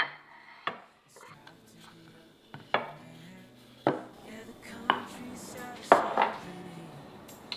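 Dishes and a wooden serving board being set down one after another on a stone countertop: a series of sharp knocks, about one a second. Faint background music underneath.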